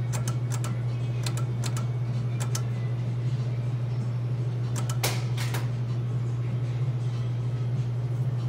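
Video slot machine's reel-stop clicks during automatic bonus spins: short sharp clicks in groups of two or three, one group every one to two seconds, the loudest a little after five seconds in. A steady low hum runs underneath.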